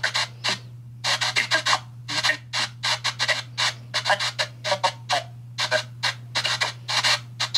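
Phone spirit box app sweeping through FM radio stations on a 150 ms sweep, giving rapid chopped bursts of radio static and short broadcast snippets that cut in and out several times a second, over a steady low hum.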